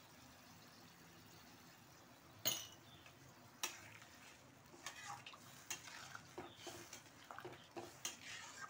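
A cooking spoon knocking and scraping against a pot as potatoes and spices are stirred in water, with two sharper knocks about two and a half and three and a half seconds in, then a run of lighter clinks and scrapes. A faint sizzle of the curry coming to the boil lies underneath.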